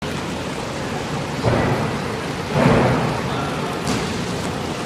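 Steady rumbling hiss with two dull thuds a little over a second apart, the second louder.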